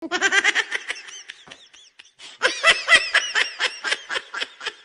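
A person laughing: two long runs of quick, high-pitched ha-ha pulses, with a short pause about two seconds in.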